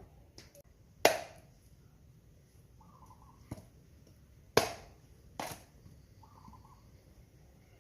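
Four sharp cracks or knocks, the first and third the loudest, with two brief clucking calls from chickens between them.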